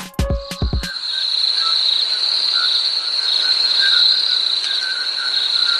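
Crickets chirping in a steady, continuous high trill, a night-time ambience. The last beats of a music track end in the first second.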